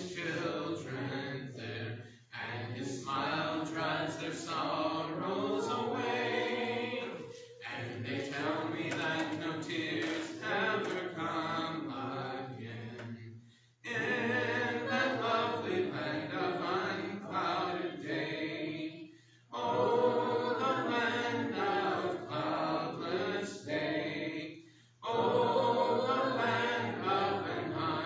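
A congregation singing a hymn a cappella, many voices together without instruments, in phrases a few seconds long with brief breaks for breath between them.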